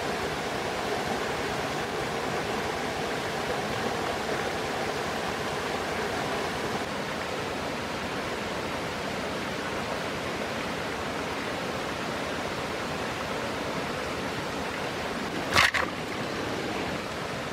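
Steady rush of flowing water from a stream. Near the end there is one sharp snap of dry bamboo sticks being handled.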